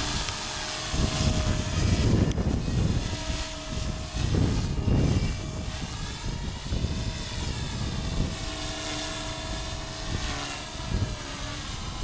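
Align T-Rex 250 electric RC helicopter in flight: a steady whine from its motor and rotors that bends up and down in pitch as it manoeuvres. Heavy wind buffets the microphone in gusts.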